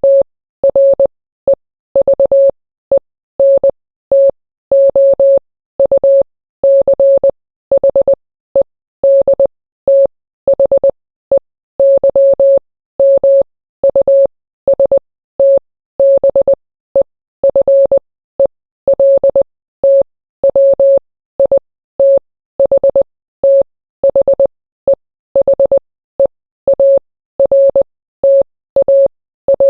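Morse code sent as a single mid-pitched beep tone, keyed on and off in short dots and longer dashes, with brief pauses between characters. Each element starts and stops abruptly with a faint click.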